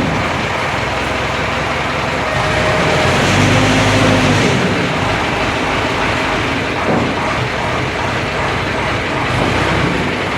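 Large diesel engine running steadily under loud mechanical clatter, swelling briefly about three to four seconds in.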